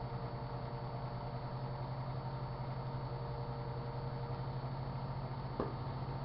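Microwave oven running with a steady low hum, and a single short pop near the end.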